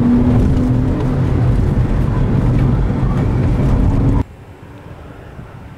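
Porsche 911 Carrera 4S (997) 3.8-litre flat-six running loud from inside the cabin, its note rising slightly near the start. About four seconds in the engine sound cuts off suddenly, leaving much quieter road and wind noise.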